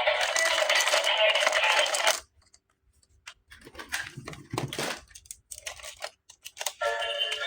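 A dense rustling noise that stops abruptly about two seconds in. After a short pause come scattered small clicks and a rustle of plastic toy parts and packaging being handled. A toy's electronic tune starts near the end.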